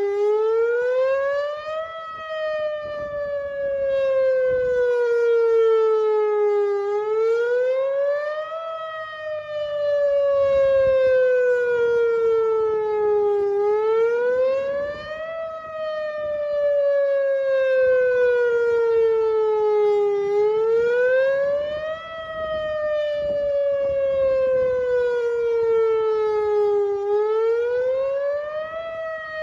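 Whelen WPS 2906 electronic outdoor warning siren sounding its Attack signal on a scheduled test: a rich, multi-toned wail that rises quickly over about two seconds, then falls slowly over about five, repeating about four and a half times.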